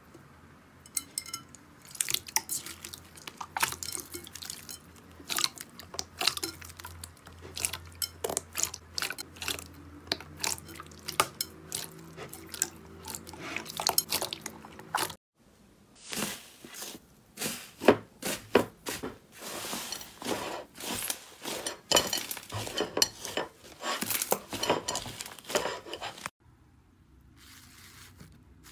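Hands squishing and pressing slime in a bowl: a rapid, uneven run of wet clicks and pops. It breaks off briefly about halfway through and again near the end.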